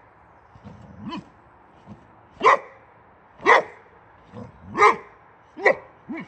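Boxer dog barking in short single barks about a second apart, four loud ones in the second half with softer barks between.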